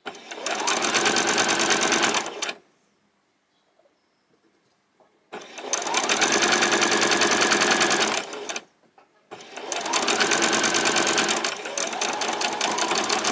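Electric domestic sewing machine stitching in three runs, each speeding up to a steady fast rattle of stitches with a motor whine that rises at the start and falls as it slows to a stop. The pauses between runs are about three seconds and then under a second.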